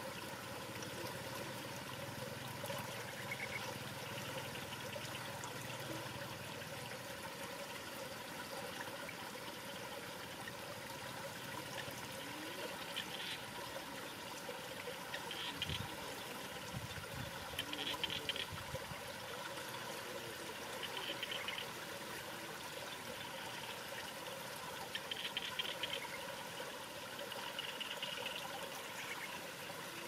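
Songbird nestlings begging with short, high calls that repeat every two to three seconds from about halfway through, over a steady background rush like running water.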